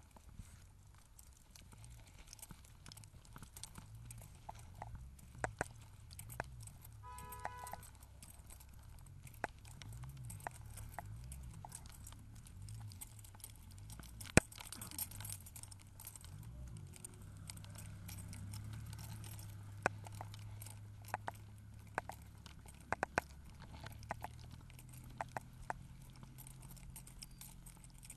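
Outdoor walking sounds: scattered clicks and light metal jingling over a low rumble, with a short beep about seven seconds in.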